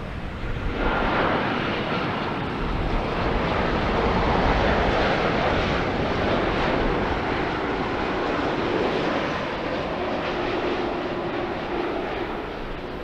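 Boeing 787-9 Dreamliner airliner passing on final approach with its gear down. The twin turbofan engines give a steady jet rumble and rush that swells about a second in and stays loud, with a faint engine whine.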